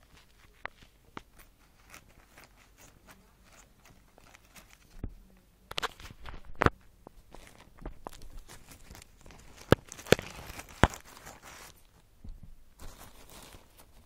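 Grey plastic mailing bag being torn open and handled: rustling and crinkling with several sharp snaps, the loudest a few seconds in and again about ten seconds in.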